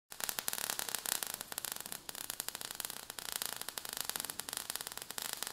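Steady crackling hiss of many small irregular clicks, a sound effect of showering sparks for an animated logo.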